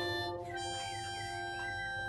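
Harmonica played slowly: several notes held together as a chord, changing about half a second in, with a wavering upper note over the held lower ones.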